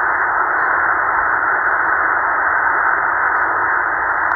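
Shortwave receiver in upper-sideband mode playing steady static from the 20-metre amateur band, with no voice coming through. The hiss is narrow and dull, cut off above about 2 kHz by the radio's 2.2 kHz SSB filter.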